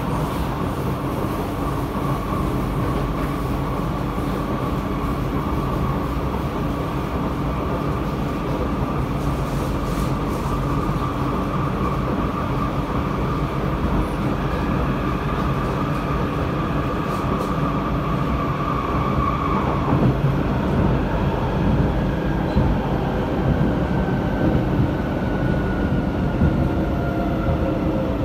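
Interior running noise of a C751B MRT train: a steady rumble from wheels and track with an electric traction motor whine. About two-thirds of the way in the whine changes and begins to fall slowly in pitch as the train slows on its approach to the next station.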